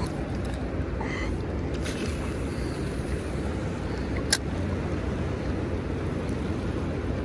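Steady low rumble of fast-flowing river current below a dam, with a single sharp click about four seconds in.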